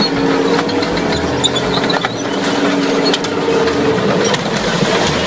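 A tank driving onto a minivan and crushing it: a steady engine drone with scattered clanks and crunches of metal.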